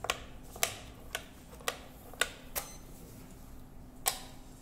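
Plastic Othello discs clicking on the board as they are placed and flipped by hand, sharp single clicks about twice a second with a louder one about four seconds in.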